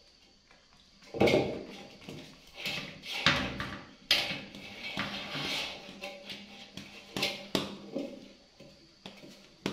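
Irregular knocks and bangs on a large stainless steel basin, about a dozen over several seconds, each ringing briefly in a small tiled room.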